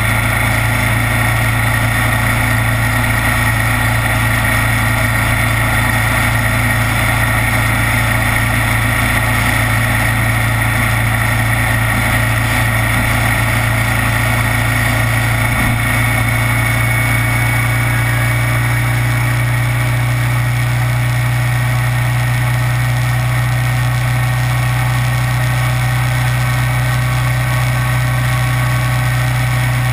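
Kawasaki Vulcan 900's V-twin engine running steadily, a loud, even drone with no change in pitch.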